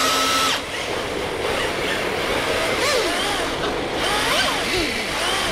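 Several RC drift cars' electric motors whining, their pitch rising and falling in short arcs as the throttle is worked, over a steady hiss. A held whine cuts off about half a second in.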